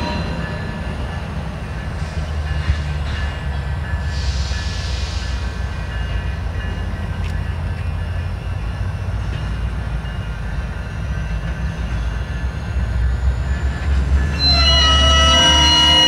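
Freight train in a rail yard: a steady low rumble, joined near the end by wheel squeal in several high, sustained tones.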